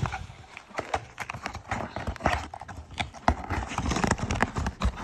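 Hands opening an SSD's retail packaging: a run of irregular clicks and knocks.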